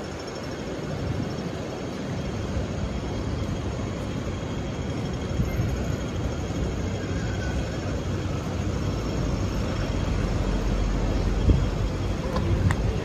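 City street traffic: a steady hum of passing vehicles, with a low rumble that grows louder over the last few seconds.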